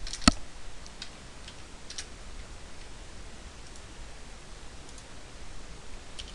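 A few sharp computer mouse clicks and keyboard keystrokes, the loudest about a quarter second in, then sparse faint clicks.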